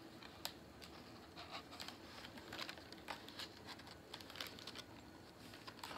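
Faint, scattered light ticks and soft rustles of hands handling the pages of a picture book.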